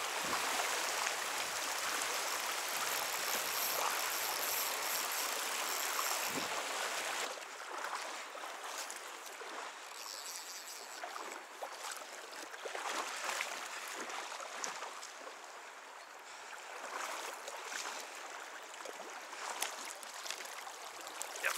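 A shallow, stony river running: a steady rush of water that drops suddenly to a quieter flow about seven seconds in. Small splashes come near the end, where a hooked trout thrashes at the surface.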